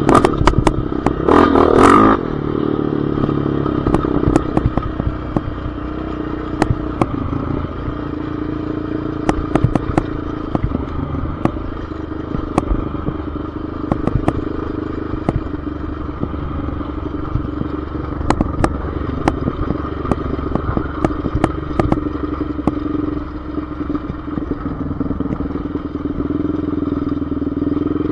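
ATV engine running steadily while riding a bumpy dirt trail, with frequent clatter and knocks from the machine jolting over the ground. About a second in there is a brief, louder rush of noise.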